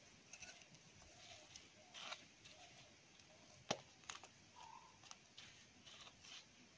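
Faint scratching and crumbling of loose potting soil as fingers press and smooth it in a plastic pot, with one sharper click about midway.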